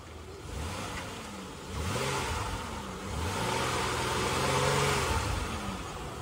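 Chevrolet Impala's V6 engine revved up and back three times, the last rev held for about two seconds before it drops. It runs smoothly, with no sign of trouble despite having sat a long time.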